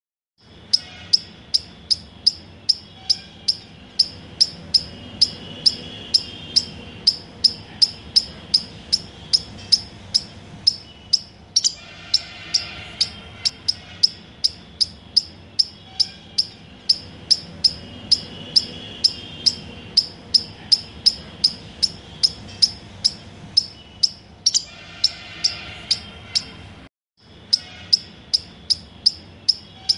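Regular high-pitched chirping, about two and a half sharp chirps a second, over a faint low hum. It cuts out for a moment near the end and starts again.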